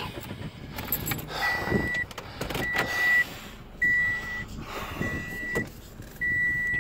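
A car's warning chime sounding five times, one steady high beep about every second, over the low rumble of the car moving along the road.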